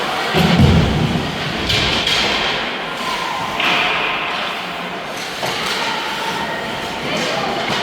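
Game noise in a large room during a youth team scrimmage: a dull thud about half a second in, a few fainter knocks later, over a steady hiss of room noise.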